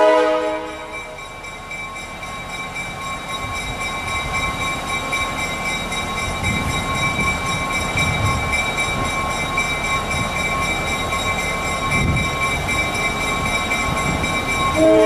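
EMD GP9 diesel locomotive approaching a grade crossing, its low engine rumble growing louder as it nears, while the crossing signal bell rings steadily. The locomotive's multi-note horn chord cuts off just after the start and sounds again right at the end.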